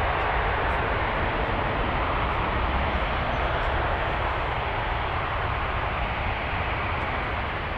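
Airbus A380's four jet engines running at low thrust as the airliner rolls slowly along the runway: a steady jet roar that eases slightly.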